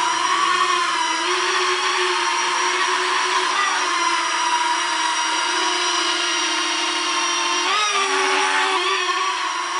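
Small four-rotor ducted-fan toy quadcopter flying, its motors and propellers whining steadily; the pitch briefly swoops up and down twice near the end.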